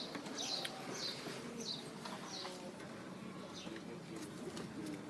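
Birds chirping: a run of short, high, falling chirps, several close together in the first half and fewer later, over a faint steady hum.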